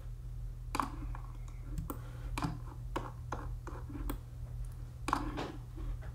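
Scattered clicks from a computer mouse's buttons and scroll wheel, with a keyboard key, over a steady low electrical hum.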